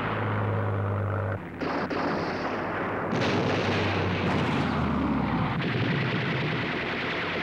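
Battle sounds: gunfire and explosions over a steady low engine drone, breaking off briefly about a second and a half in before resuming.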